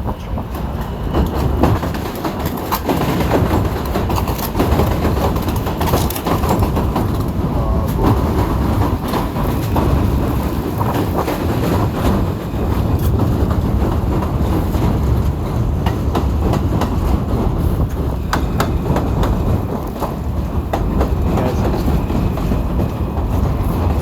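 A subway train rumbling and clattering across the bridge's tracks, steady throughout with many sharp clicks, under heavy blizzard wind buffeting the microphone.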